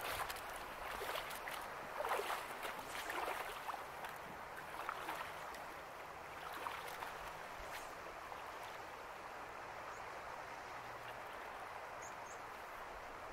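Steady rush of shallow flowing river water, with irregular splashes of wading steps through the shallows during the first few seconds that then die away.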